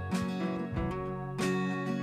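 Background music with strummed acoustic guitar: sustained chords, with fresh strums just after the start and again about one and a half seconds in.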